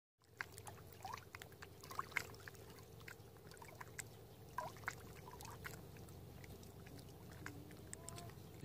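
Calm sea water faintly lapping and trickling among shoreline rocks, with scattered small gurgles and drips.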